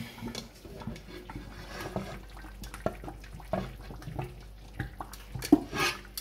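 Ground peanut paste bubbling in a covered stainless steel pot on the heat, with irregular soft pops and plops. Near the end the glass lid is lifted off, with a couple of louder knocks.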